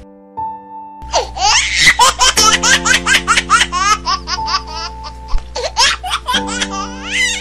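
Baby laughter, rapid and repeated, laid over background music with a sustained chord. The laughing starts about a second in and is densest in the middle.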